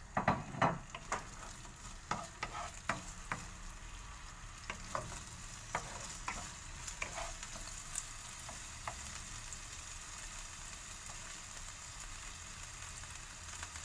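Sliced chorizo sizzling in oil in a nonstick wok, with a wooden spatula tapping and scraping against the pan as it is stirred. The clicks are dense at first and thin out after about nine seconds, leaving a steady sizzle.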